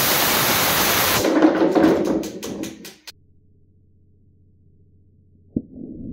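Small rocket motor firing: a loud hiss for just over a second that dies away over the next two seconds with a few sharp clicks. It is followed by a quiet low hum, then a click and a muffled rush building near the end.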